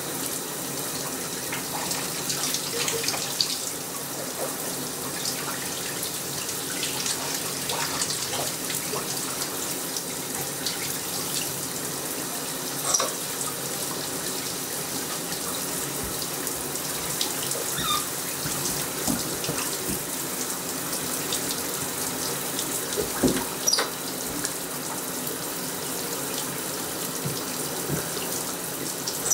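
Shower spray running steadily into a tub, with a few brief louder knocks about 13 s and 24 s in.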